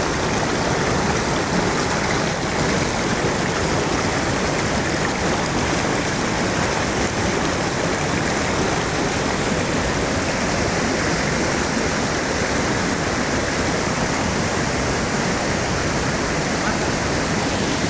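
Steady rush of a fast mountain stream tumbling white over boulders.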